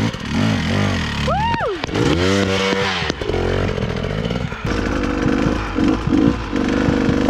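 Dirt bike engine revving on a hill climb, its pitch rising and falling again and again as the throttle is worked. One person whoops once.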